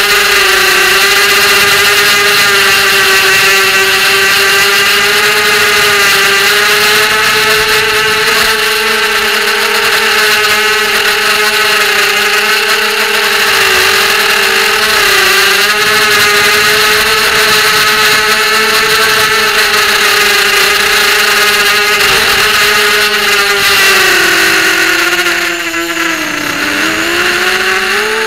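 ZMR250 racing quadcopter's electric motors and propellers whining in flight, heard from on board, the pitch wavering with the throttle. Near the end the pitch drops as the throttle is eased off, then climbs again.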